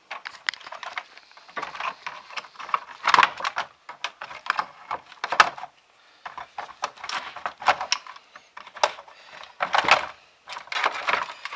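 Irregular clicks, clinks and clatters of scrap metal and cables being handled and sorted by hand, with a couple of short pauses.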